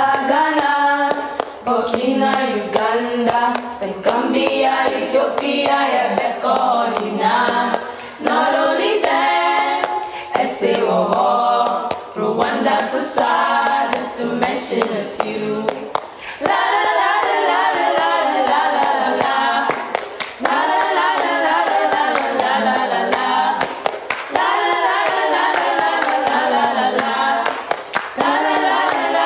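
A group of girls singing together a cappella in phrased, continuous verses, with hand clapping.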